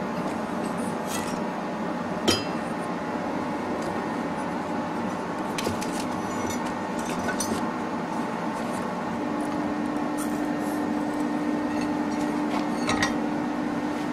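Scattered clinks and taps of steel pieces and hand tools being handled on a blacksmith's workbench, the sharpest about two seconds in, over a steady background hum that gains a steady tone about nine seconds in.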